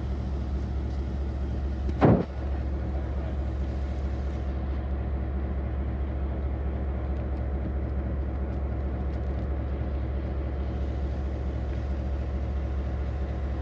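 Diesel locomotive engine idling steadily with a low hum. About two seconds in there is one brief loud burst.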